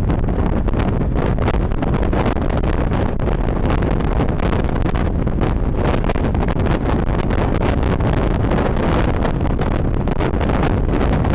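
Steady, loud rushing of a waterfall, an even unbroken roar of falling water with no changes.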